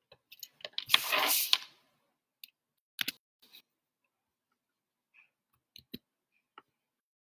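Paper rustling for under a second, the loudest sound, among scattered small clicks and taps of a pen and paper being handled at a desk.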